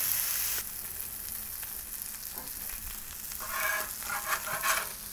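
Salmon fillets sizzling in oil on a Blackstone flat-top griddle, a steady hiss that drops in level after about half a second. From about three and a half seconds in, a metal spatula scrapes across the griddle as it slides under a fillet.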